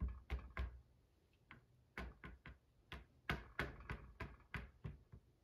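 Light, quick taps of a small acrylic paint bottle's tip dabbing dots onto a canvas, about three to four a second, with a pause of about a second near the start.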